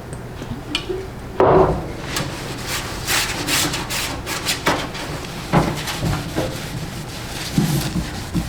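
Hand work on a metal tool chest: irregular knocks and clatters, with one loud knock about one and a half seconds in and a quick run of short scraping strokes soon after.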